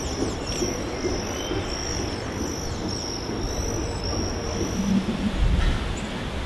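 Outdoor ambience: a steady low rumble, with a high, thin chirp repeating evenly about twice a second that stops about five seconds in.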